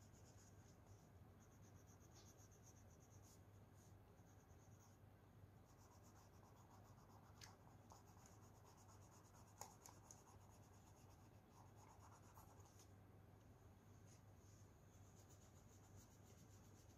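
Faint scratching of colour being rubbed onto paper in strokes, with a couple of light taps near the middle, over a low steady hum.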